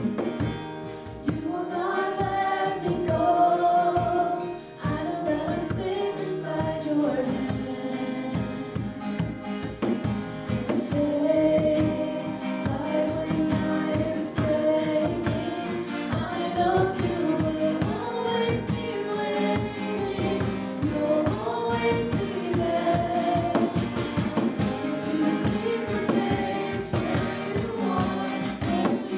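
Live worship band: several men and women singing together over acoustic guitar, keyboard and cajón. The percussion grows busier near the end.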